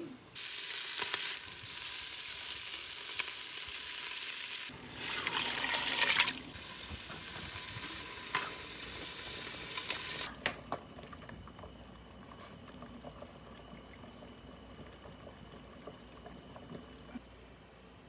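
Large stainless stockpot of potatoes boiling hard on a gas stove: a loud steady hiss that breaks briefly twice and cuts off sharply about ten seconds in. A quieter stretch follows with a faint steady tone and a few light clicks.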